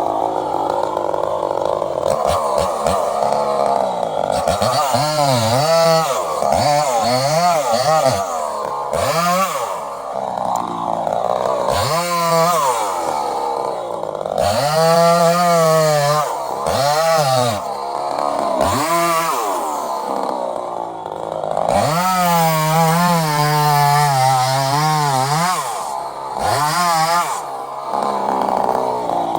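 Gas chainsaw running hard, its engine pitch dropping and climbing back again and again as it works through wood, with a longer stretch held at a lower pitch about two-thirds of the way through.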